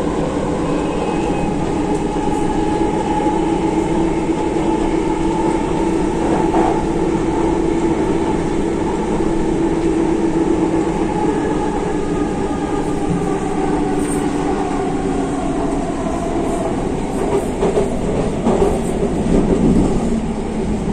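Delhi Metro train running on elevated track, heard from inside the coach: a steady hum and whine of motors and wheels on rail. Louder rattling and knocking comes near the end.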